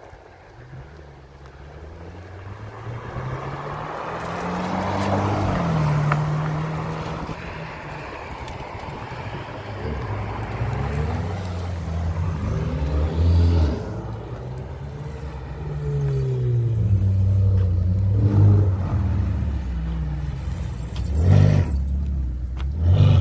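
Ferrari 488 twin-turbo V8 engines pulling past one after another at low speed. The revs rise and fall several times through the gear changes, with a couple of short, sharp rev blips near the end.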